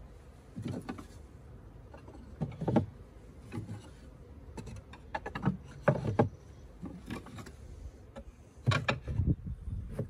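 Wooden beehive frames being set back into a Colony Keeper hive body, one after another: a string of separate wooden knocks and clunks, several seconds apart at first and closer together near the end.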